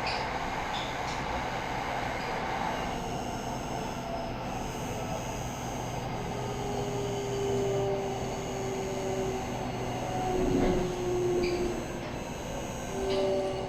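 Electric Red Line commuter train running: a steady rumble of wheels on rail, with a humming whine that comes and goes through the second half and a louder swell about ten seconds in.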